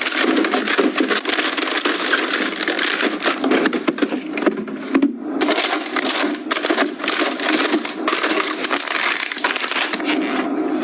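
Dense crackling and rattling of food packaging and items being handled while restocking a kitchen, with many quick clicks and a short pause about five seconds in.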